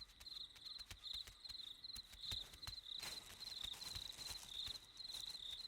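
Faint outdoor ambience of insects chirping in a steady series of short, high chirps, roughly two a second, with occasional soft clicks and rustles.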